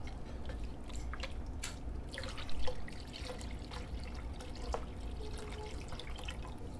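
Beef stock being poured into a hot pot of beef tips and gravy: liquid pouring and splashing with scattered small crackles, louder for a moment about two and a half seconds in.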